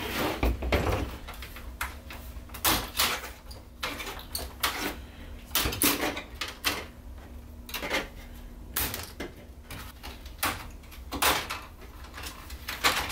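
Plastic retaining pieces being pried off the edge of an LCD TV panel while the panel is handled, giving irregular clicks, knocks and scrapes.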